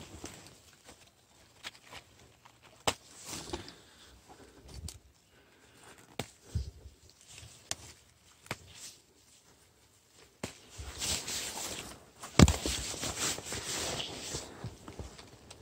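Footsteps and rustling in dry leaf litter on a forest floor, with scattered snaps and knocks. In the second half the leaves and plants rustle louder for a few seconds as they are handled.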